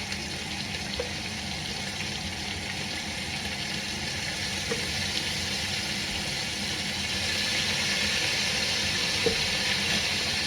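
Minced garlic and onions sizzling in hot oil in a Dutch oven: a steady hiss that grows slightly louder, with a few faint ticks.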